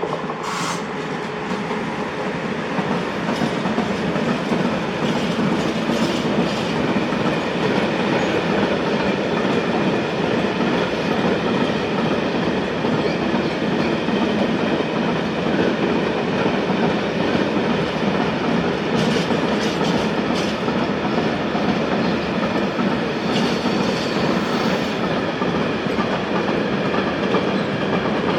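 A train rolling past close by through the points. Steady rolling noise builds over the first few seconds, with scattered clicks of the wheels over rail joints and switches and a faint wheel squeal.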